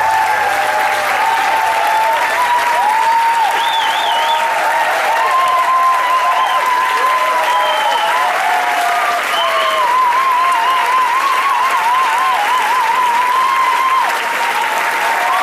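Audience applauding steadily, with wavering high cheers or whistles rising and falling over the clapping.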